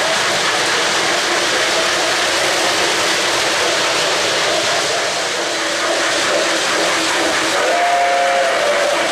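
O-gauge model train running on three-rail track, a steady rushing noise of wheels and motors. About three-quarters of the way in, the model steam locomotive sounds a two-note whistle.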